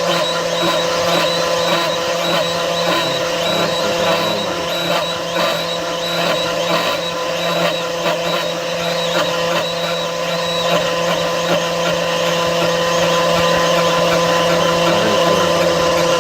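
CNC milling machine with its spindle running and an end mill cutting metal: a steady whine with a rough, grainy cutting noise over it, a little louder in the last few seconds.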